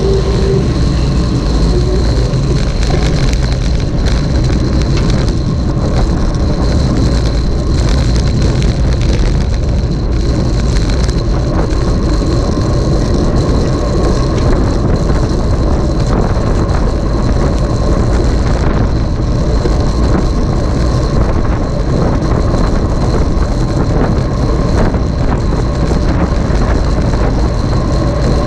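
Wind and road noise on the microphone of a camera moving at speed: a loud, steady rush, heaviest in the low end, with two faint steady whistling tones over it.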